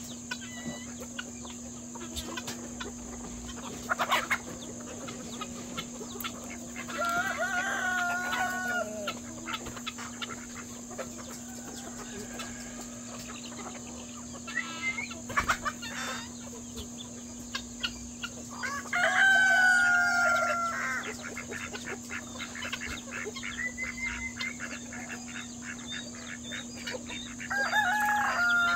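Roosters crowing three times, each crow a long held call of about two seconds, over the clucking and chattering of a mixed free-range poultry flock. A steady low hum and a steady high-pitched drone run underneath.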